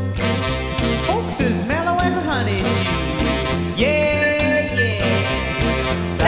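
Male a cappella group singing a wordless opening, with sliding notes and one long held note over a steady beat and a stepping bass line.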